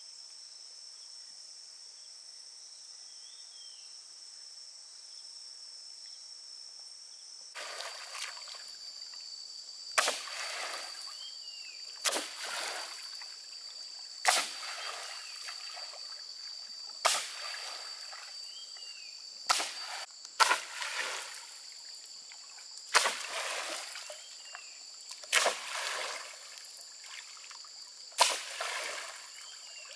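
Insects whine steadily, with a few faint bird chirps. After several seconds a long pole starts striking the lake water: sharp splashing slaps every two to three seconds, about nine in all, each trailing off in a wash of water.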